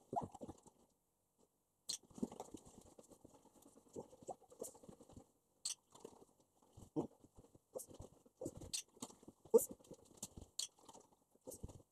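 Dog chewing and crunching a treat, with irregular clicks of its claws on the hard tiled floor as it moves.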